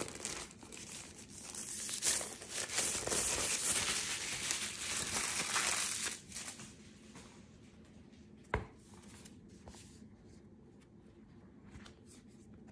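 Thin white wrapping crinkling and tearing as it is pulled off a tablet folio case, for about six seconds. Then a single sharp click and quiet handling of the case.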